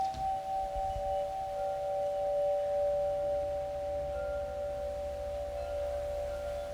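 Crystal singing bowls ringing together, several steady pure tones sustained and blending without new strikes. Faint short higher notes from a wind chime come and go above them.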